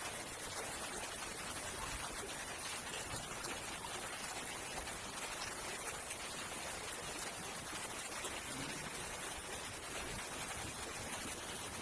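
Steady rushing water noise of heavy rain and floodwater on a flooded street.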